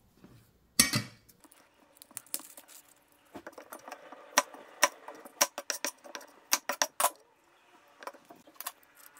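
Dry, papery shallot skins being peeled off by hand on a plastic cutting board. A sharp knock comes about a second in, followed by a run of quick crackles and clicks through the middle and a few more near the end.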